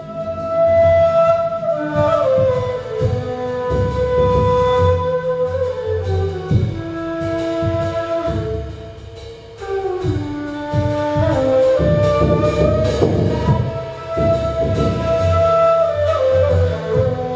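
Ney, an end-blown cane flute, holding long notes and stepping down through falling phrases, over low mallet strokes on a frame drum.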